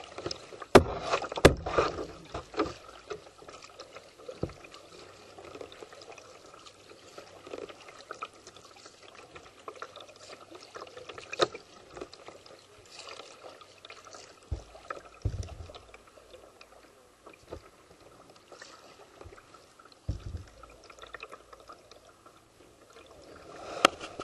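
Paddling a canoe on a calm river: paddle strokes splashing and dripping in the water. A few sharp knocks stand out, the loudest two about a second in.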